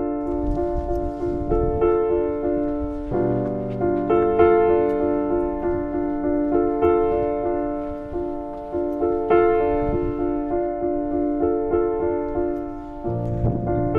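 Background piano music: sustained chords with notes struck in a steady rhythm. The chord changes about three seconds in and again near the end.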